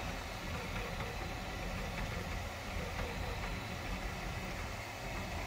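Magnetic IDEX 3D printer, a converted FlashForge Creator Pro 2 with pancake stepper motors, running mid-print: a steady mechanical hum with a low drone.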